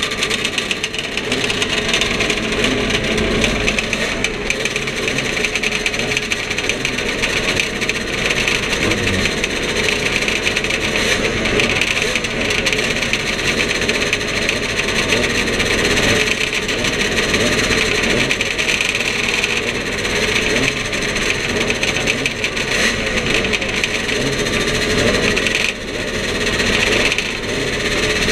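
Classic racing motorcycles, the camera bike among them, running at idle together on a start grid: a loud, steady mix of engines.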